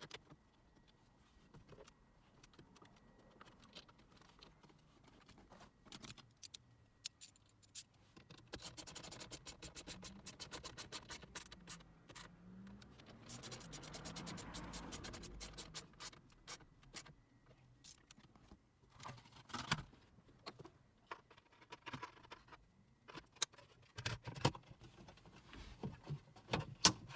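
Hands working on plastic dashboard trim while screws are put back in by hand: small clicks, scratches and scrapes, a run of fast clicking about nine seconds in, and a few sharper plastic knocks near the end.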